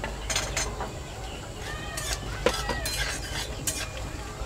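Cashew nuts tipped from a glass bowl into a metal kadai, then a long metal spatula clinking and scraping against the pan as they are stirred in ghee: a series of sharp clinks spread through.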